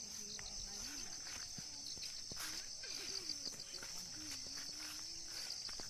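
Steady, high-pitched chorus of crickets and other insects, with a few faint clicks.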